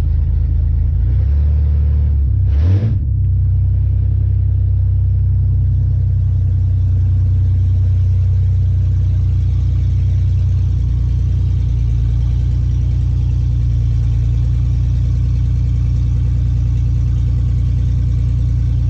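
1987 Ford Ranger's engine running at low speed while the truck reverses slowly, heard from inside the cab as a steady low hum. A short rising sound comes about three seconds in.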